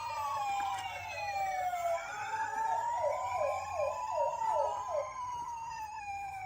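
Electronic sirens of several toy ambulance minicars sounding together: slow rising and falling wails overlap at different pitches. A quick run of short falling yelps comes in the middle.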